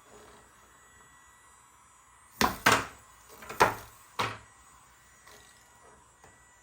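Four sharp hard knocks bunched over about two seconds in the middle, each dying away quickly: a plastic puck and mallets clacking on a toy tabletop air hockey game.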